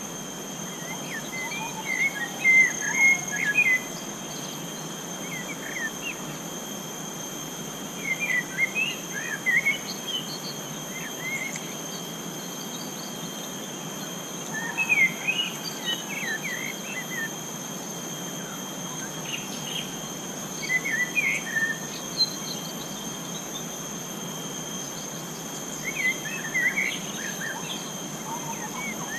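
Forest ambience: a bird singing short bursts of quick chirping notes about every five to six seconds, over a steady high-pitched insect drone.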